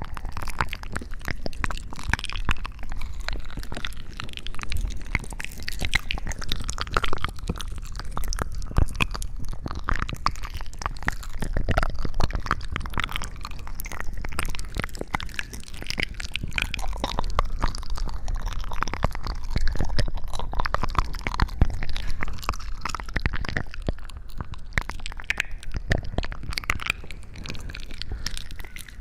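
Close-miked ASMR sounds: a dense, irregular run of wet crackles, clicks and squishes.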